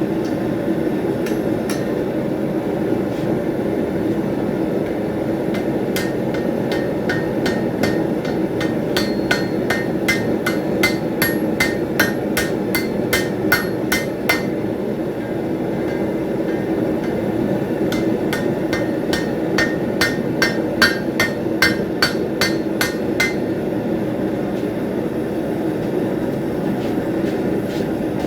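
Blacksmith's hand hammer striking hot steel on the anvil in two quick runs of blows, about four a second, each blow ringing briefly. A steady rushing noise runs underneath.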